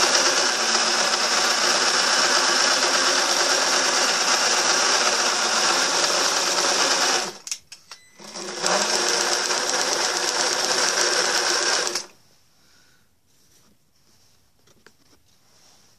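Electric motor of a battery-electric miniature loco chassis running the wheels, crank arms and coupling rods through a roller-chain drive, a steady mechanical whirr. It stops briefly about seven seconds in, starts again rising in pitch, and stops about twelve seconds in. The chassis is freshly reassembled and oiled and still tight, being run in.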